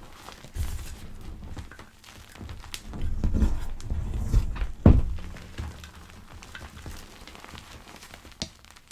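Gym chalk pebbles being crushed: soft crackles and crumbling with dull thuds, busiest from about three to five seconds in, with one sharp knock near five seconds.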